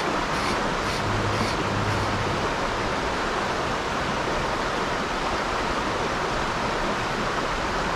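Shallow river rushing over rocks, a steady, even hiss.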